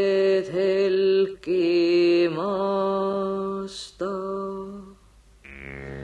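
Slow, chant-like singing of an Estonian runo folk song: long held notes, each sliding up into pitch. The singing breaks off about five seconds in, and a lower, steadier tone follows.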